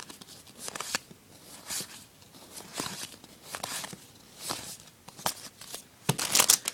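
Hockey trading cards being handled and flipped through by hand, a short papery swish about once a second, then louder crinkling of a pack wrapper near the end.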